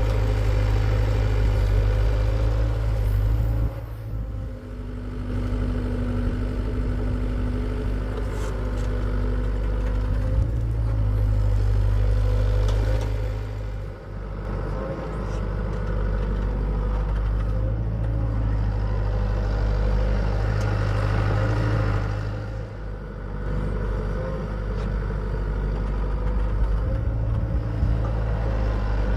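Hitachi EX75UR excavator's diesel engine running steadily under digging load, with its level easing off briefly three times.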